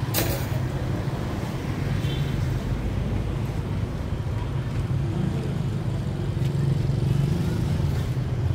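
Street traffic: cars and motorbikes driving past, with a steady low rumble throughout. A sharp knock right at the start.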